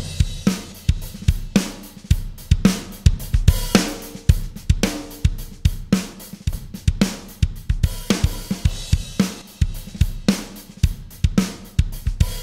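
A recorded drum kit plays a steady beat of kick, snare, hi-hat and cymbals. It runs heavily compressed through an analog bus compressor driven hard into its output transformer, giving a dense, glued-together drum sound.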